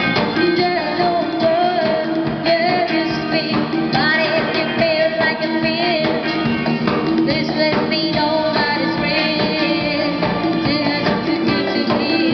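Live pop-rock band playing: drum kit, electric guitar, bass guitar and keyboard, with a voice singing the melody.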